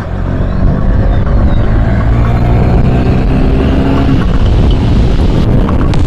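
Motorcycle engine pulling away and accelerating, its note climbing steadily as the bike gathers speed.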